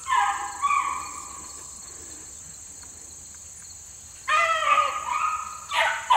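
Beagle pups baying on a rabbit's trail: high-pitched yelping cries in the first second, a lull, then several more bursts of baying in the last two seconds.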